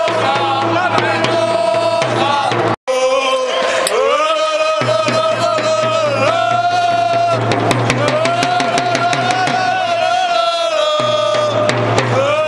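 Music with singing: long held sung notes over a steady low tone and drum beats, cut off for a moment near three seconds in.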